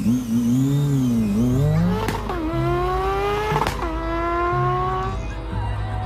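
Motorcycle engine revving up and down, then accelerating hard: its pitch climbs steadily and drops sharply at two gear changes, about two seconds in and again near the middle.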